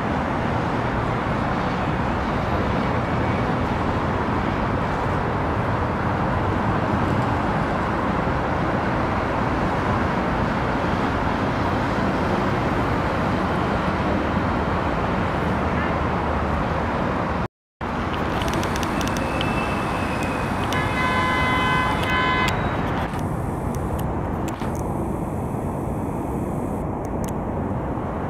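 Steady road traffic noise from a busy city road. About two-thirds of the way through, a vehicle horn sounds briefly.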